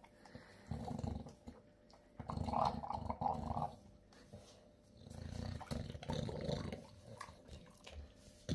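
English bulldog eating a cut-up ribeye steak from a raised plastic bowl: wet chewing, gulping and snuffling grunts in several bouts with short pauses between them.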